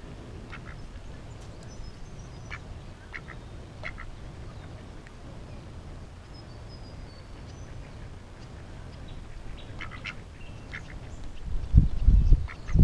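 Ducks quacking in short calls at intervals, with a few thin high bird chirps. A steady low rumble runs underneath, and loud low thumps come near the end.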